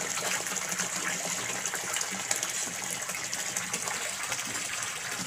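Steady stream of water pouring from a pipe into a koi pond, splashing onto the surface.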